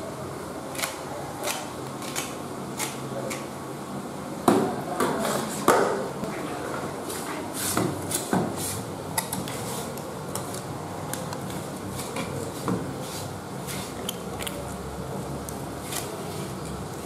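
Kitchen knife scraping the slime off a whole pink catfish's scaleless skin on a wooden chopping block: a run of short scrapes and clicks, with two louder knocks about four and a half and six seconds in.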